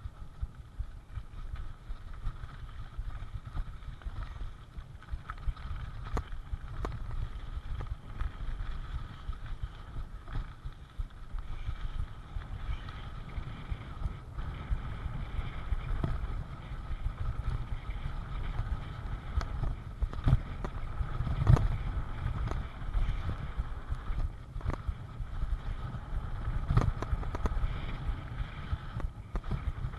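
Full-suspension mountain bike rolling down a dirt and gravel trail, heard from a handlebar-mounted camera: steady wind and tyre rumble with frequent knocks and rattles as the bike goes over rocks and bumps, growing louder after about halfway.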